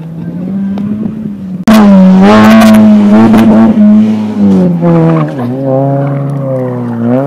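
Renault Megane rally car's engine at high revs on a special stage, going suddenly much louder under two seconds in. Its pitch holds high, falls away about five seconds in as the driver shifts or lifts, then climbs again before another drop near the end.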